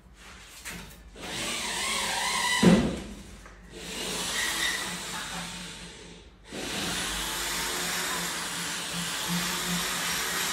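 Steel spatula scraping across wet decorative plaster on a wall in three long strokes, with a sharp knock a little under three seconds in.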